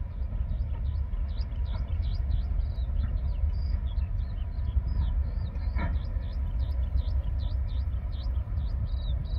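Loaded coal hopper wagons of a freight train rumbling past at the tail of the train. Birds chirp constantly over the rumble, and there is one brief higher sound about six seconds in.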